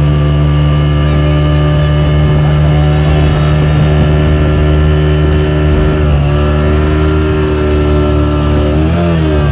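Yamaha 40 hp outboard motor running steadily under way, towing a loaded banana boat. Near the end its pitch falls as the throttle is eased off.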